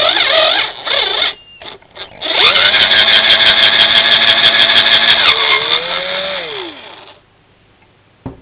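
Power drill working in the exhaust bolt holes of an HPI Baja engine's cylinder head, opening up the cross-threaded holes to take 6 mm bolts. Two short bursts come first, then a run of about five seconds with fast clicking, and the motor slows and winds down before it stops.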